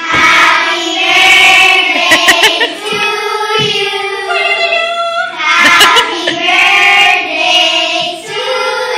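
A group of young girls singing a birthday song together to a cake with a lit candle.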